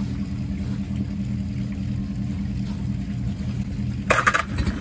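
Old Mercury outboard motor running steadily with an even low pulsing, clamped on a rail mount out of the water and revived after years unused. A brief, loud burst of noise comes about four seconds in.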